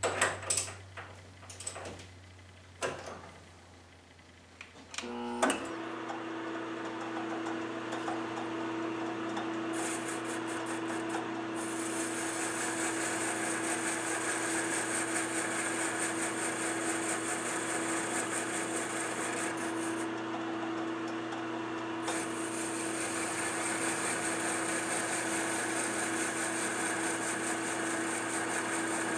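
A few clicks and knocks as a lathe tool is adjusted in its tool post, then a small metal lathe's motor starts about five seconds in and runs with a steady hum. From about ten seconds in a high hiss of the tool cutting the metal workpiece joins it, breaking off for a moment around twenty seconds, during a finishing cut on the part's diameter and shoulder.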